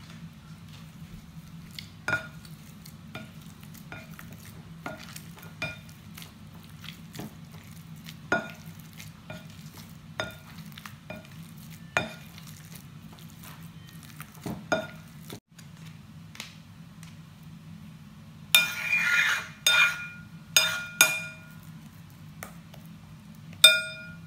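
Black plastic potato masher pressing boiled potatoes in a ceramic bowl, knocking the bowl about once a second, each knock with a short ringing clink. About three-quarters through comes a longer scrape and a quick run of knocks, and near the end a metal spoon clinks sharply on the bowl, all over a steady low hum.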